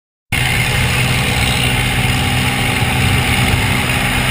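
Light aircraft's propeller engine droning steadily under a loud rush of wind, heard from inside the cabin with the door open; it cuts in suddenly just after the start.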